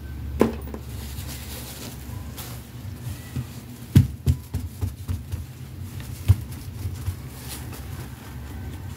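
Toy fashion dolls being handled and set down on a mat: a string of soft knocks with the rustle of their lace gowns, the loudest a little after four seconds and again past six seconds, over a steady low hum.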